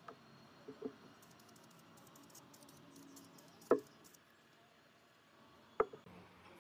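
Handling noise on a workbench: a few light clicks, then two sharper knocks, one a little past halfway and one near the end, as a small cast-iron dynamo stator and an aerosol can are picked up and set down.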